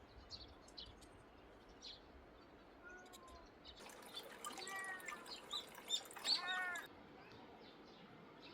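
A cat making short chirping calls, about three of them, the last the loudest, with a few faint ticks before them.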